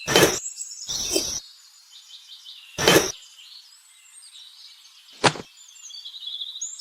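Birds chirping faintly in the background, with a few short noisy bursts near the start and a sharp click about five seconds in.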